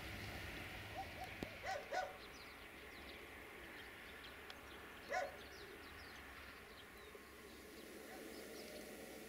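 Quiet countryside ambience with a few short distant animal calls, two close together about two seconds in and one more about five seconds in, and faint bird chirps.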